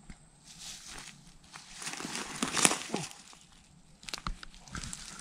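Footsteps and rustling through dry grass, brush and sand, swelling to a loud crunch a little before the middle, then a few sharp clicks and knocks near the end.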